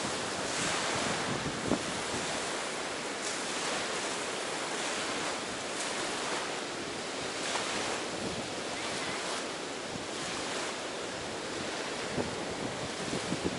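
Ocean surf washing onto a beach: a steady rush with a swell every few seconds.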